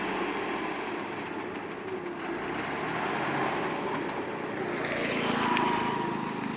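Heavy truck engine running steadily, growing a little louder about five seconds in.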